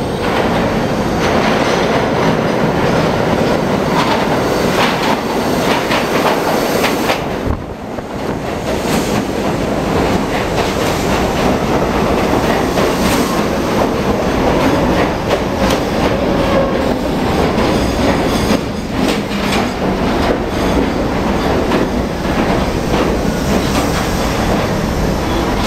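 A Budd-built R32 stainless-steel subway train pulls into an underground station with a loud rumble and its wheels clattering over the rail joints. A whine rises near the end as the train slows.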